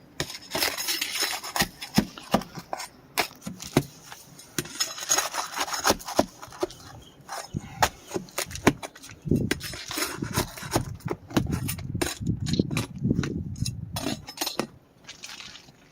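Scraping, rubbing and irregular sharp knocks as an asphalt roof shingle is worked loose and its nails pulled, with a denser stretch of scraping in the second half.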